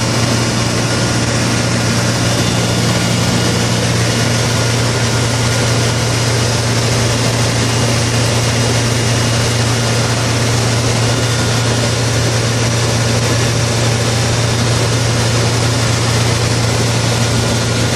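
Light aircraft's piston engine and propeller running steadily in cruise flight, heard from inside the cockpit: a constant low hum under a loud hiss of rushing air.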